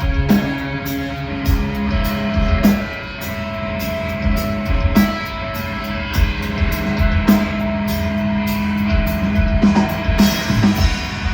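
Live metal band playing an instrumental passage: distorted electric guitars holding sustained chords over a drum kit with regular cymbal and snare hits.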